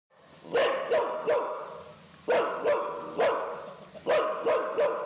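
A medium-sized tan dog barking repeatedly: about ten sharp barks in uneven bursts, some in quick pairs, starting about half a second in.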